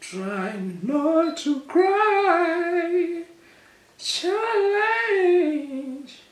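A man singing two drawn-out, wavering phrases without clear words, with a short pause before the second phrase about four seconds in.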